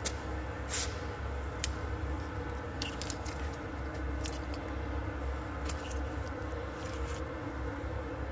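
Skoda 2.0 TDI four-cylinder turbodiesel engine running at a steady idle, heard close up in the engine bay, with scattered short clicks and rattles on top.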